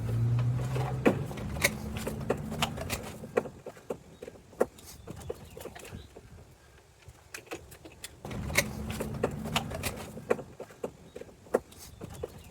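Screws being backed out of the stock RV entry-door lock: scattered clicks and small metal taps from the screwdriver and lock hardware. A low steady hum runs for about three seconds at the start and again for about two seconds past the middle.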